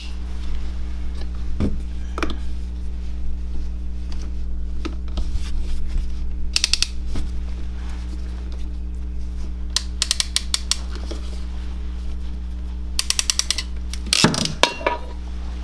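A ratcheting hand tool clicking in several short quick runs, over a steady low hum.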